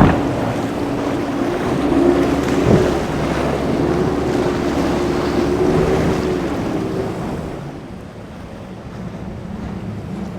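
Motorboat engine running, its pitch wavering, over the wash of waves with wind buffeting the microphone; a couple of sharp knocks early, and the engine and water sound drop off about eight seconds in.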